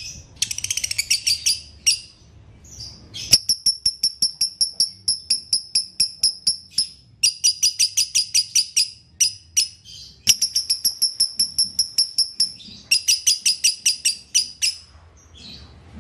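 Lovebird singing in its 'dobel' or 'konslet' style: long runs of rapid, evenly repeated high chirps, about six a second, coming in several bursts of a few seconds each with short breaks between.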